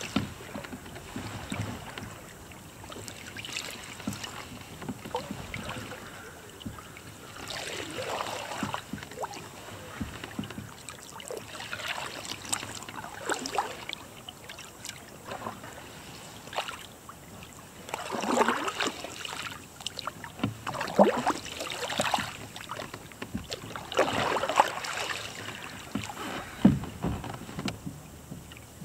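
A wooden bent-shaft Sawyer canoe paddle stroking through calm water beside a pack canoe. Each stroke brings a swirl of splashing and gurgling, every few seconds and unevenly spaced, with a few light knocks scattered between.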